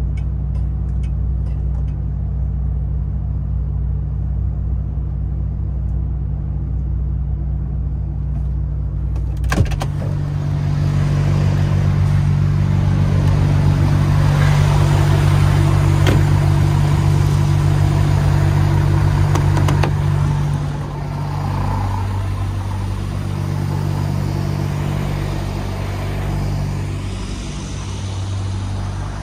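MAN TGX 18.510 truck's six-cylinder diesel engine running with a steady low hum; about ten seconds in, after a sharp click, it gets louder and fuller, then eases back a little after about twenty seconds.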